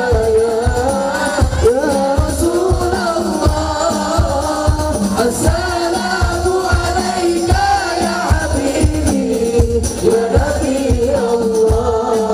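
Sholawat, devotional Islamic praise song: voices sing a wavering melody over a steady beat of drums, about two to three strikes a second.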